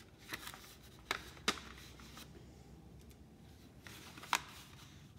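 Folded sheets of paper rustling as they are handled and pressed together, with a few short, sharp crackles, the loudest near the end.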